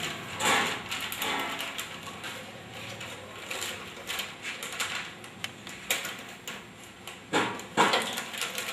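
Laminated plastic packaging film crinkling and rustling as it is pulled by hand through the rollers and forming tube of a pouch packing machine, with scattered clicks and knocks from the handling. There is a louder rustle about half a second in and two louder bursts around seven to eight seconds in.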